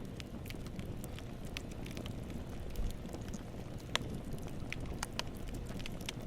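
Wood fire crackling: irregular sharp pops and snaps of burning wood over a low, steady rumble of flames, with the loudest pop about four seconds in.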